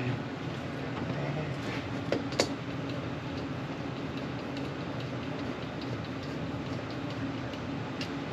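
Steady hum of a running Mitsubishi air handler's blower, with a few light clicks about two seconds in and again near the end.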